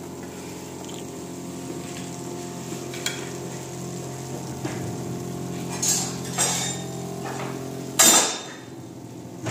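Kitchenware clinking and clattering, with a few light clinks and one louder clatter about eight seconds in, over a steady hum.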